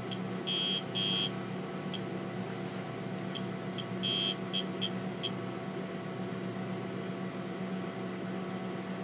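Steady electrical hum of a TRS-80 Model 16B computer's fan and floppy drive motor running, with a few short buzzes and faint ticks from the floppy drive as it reads the disk directory.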